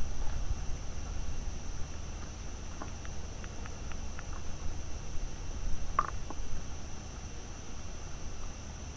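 Steady high-pitched trill of night insects such as crickets over a low rumble, with a few faint ticks and one sharper click about six seconds in.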